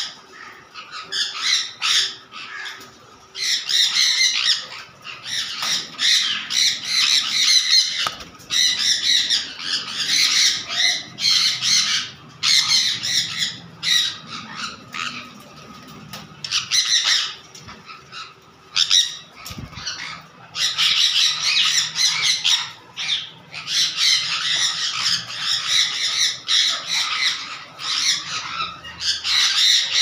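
Several sun conures screeching: harsh, shrill squawks in rapid, overlapping runs, with a few short lulls.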